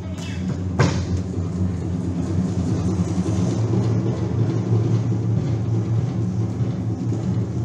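Low, dense rumbling drone, engine-like, that swells in as it begins and then holds steady. A single sharp hit or clap cuts through it about a second in.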